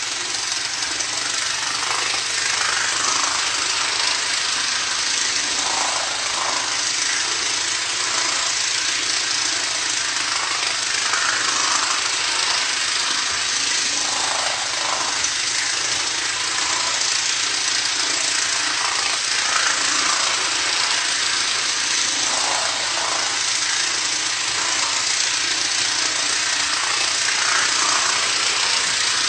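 Vintage Santa Fe electric toy train, a locomotive hauling five cars around an oval of plastic-roadbed track, running steadily with a buzzing motor and rattling wheel clatter. The sound swells every few seconds and grows a little louder near the end.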